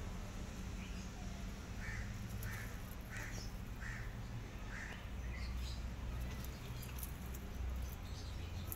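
An animal calling: a run of about six short, high calls in quick succession, over a steady low background hum.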